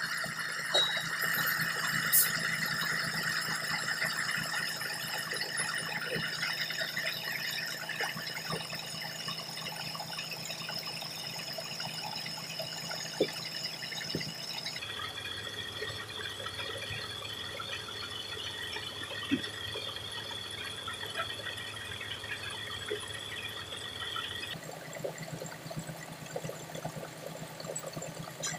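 Heavy diesel truck engine idling steadily, with a high steady whine over it. The sound shifts abruptly about halfway through and again near the end.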